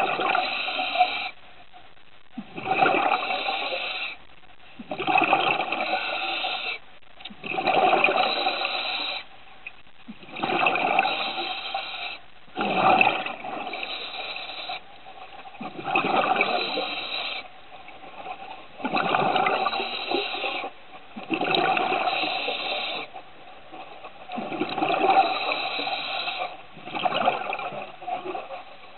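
Scuba diver's regulator underwater: bubbly exhalations every two to three seconds, with quieter breaths drawn in between.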